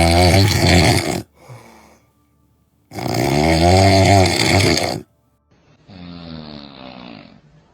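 A sleeping person snoring: two long, loud snores of about two seconds each, with a faint breath between them, then a quieter snore about six seconds in.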